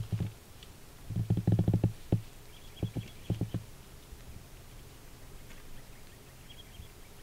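Bull elk grunting: a quick run of low, deep chuckles about a second in, then a shorter run of a few more near the three-second mark.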